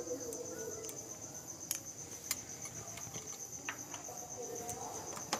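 An insect trilling steadily at a high pitch, with a few faint light clicks.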